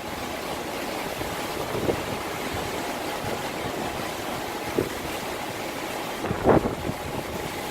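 Hurricane wind rushing steadily as the storm approaches, with a few short louder gusts, the strongest late on.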